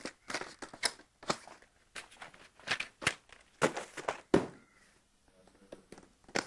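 Irregular run of short rustles and knocks as clothes and a box are handled and moved about on a bed. They come thick for the first four seconds or so, then turn fainter and sparser.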